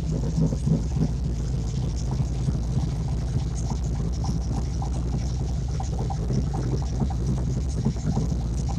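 Engine idling steadily, with a light ticking noise that the owner takes for flywheel noise after an AODE automatic transmission swap. He suspects the torque converter-to-flywheel bolts were not torqued properly.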